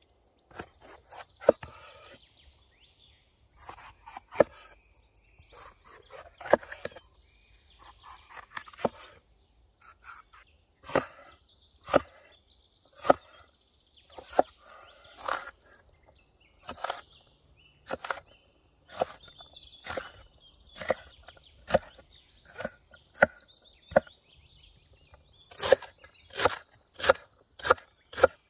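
Large knife cutting bell peppers on a wooden cutting board, each stroke ending in a sharp knock on the wood about once a second, then quicker chopping near the end as it cuts celery. Birds chirp faintly in the background.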